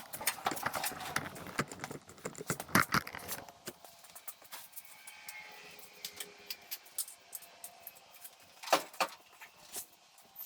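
Light metallic clinking and clattering, busiest in the first three seconds, with scattered clicks after and a sharp knock near the end.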